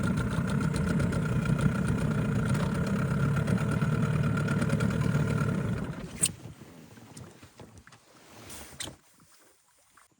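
Boat engine running steadily, then dropping away after about six seconds and fading out, with a sharp click as it drops.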